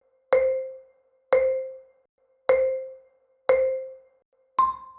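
Countdown sound effect: four short, identical pitched tones about a second apart, then a fifth, higher tone near the end, cueing the start of the replayed dialogue clip.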